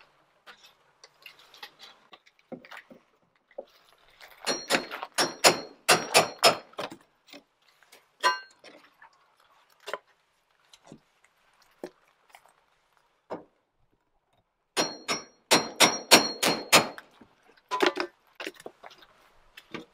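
Hammer blows knocking the wooden trim off a coop door opening: two quick runs of about half a dozen strikes each, a few seconds in and again about fifteen seconds in, with a light metallic ring. Scattered light knocks and scrapes of the prying come in between.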